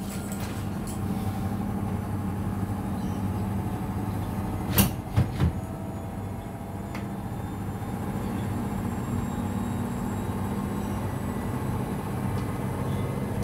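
Samsung front-loading washing machine running with a steady low hum. About five seconds in comes one sharp knock, followed quickly by two lighter knocks.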